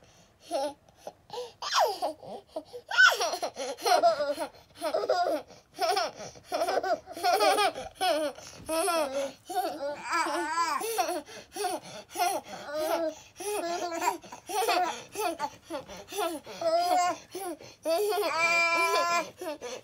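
Young children laughing and babbling together, a baby's laughter among it, in a string of short giggles; near the end one long high-pitched squeal.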